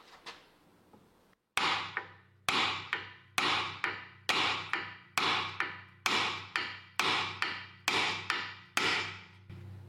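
Hammer blows on the worn, tapered front ball joint of a Mercedes W169 A-Class, knocking it loose from its seat: about ten steady strikes a little under a second apart, each ringing briefly, starting about a second and a half in.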